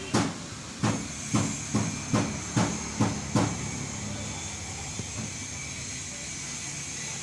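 Diesel engine running steadily with a high, steady whine over it. In the first three and a half seconds, a run of eight sharp knocks comes about two a second, each ringing briefly, then stops.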